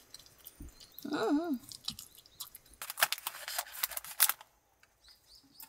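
Scissors snipping open a plastic packet of seaweed sheets, the wrapper crackling in a quick run of cuts from about three seconds in. A short wavering voice-like sound comes just after the first second.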